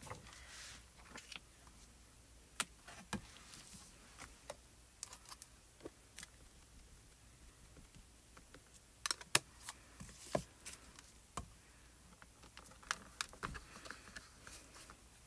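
Scattered light taps and clicks of stamping tools being handled: a round ink pad tapped onto a clear stamp on the hinged lid of a stamp positioner. The taps come in a quicker, louder cluster about nine to ten seconds in.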